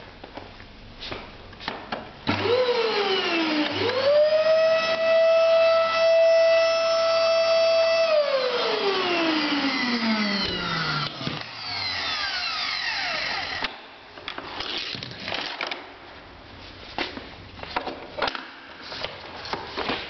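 Somela Elipse 1400 W canister vacuum cleaner motor switched on about two seconds in: it starts, dips briefly, then spins up to a steady high whine. About six seconds later it is switched off and winds down, the whine falling in pitch for around five seconds. The rest is scattered clicks and knocks from handling the machine.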